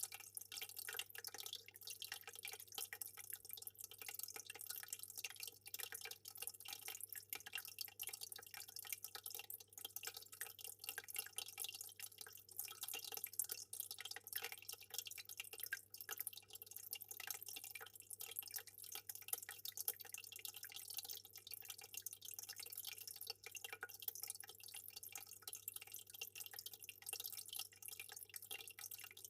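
Aquarium water trickling and dripping, a steady patter of small splashes, with a faint low hum underneath.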